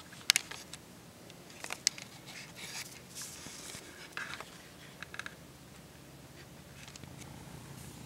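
A deer feeding on birdseed at close range: scattered sharp crunches and clicks as it eats, with a short breathy rush about three seconds in.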